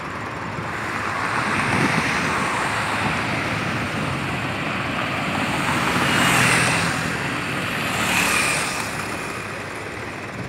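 Road traffic on a highway: several vehicles passing in turn, their tyre and engine noise swelling and fading, the loudest pass about six seconds in and another about two seconds after it.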